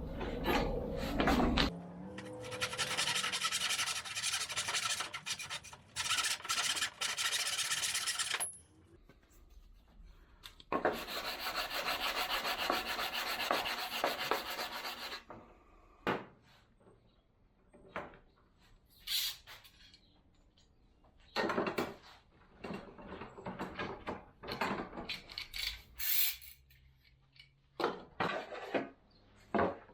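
Wood being sanded: two long continuous passes of several seconds each, then a run of shorter, separate scraping strokes.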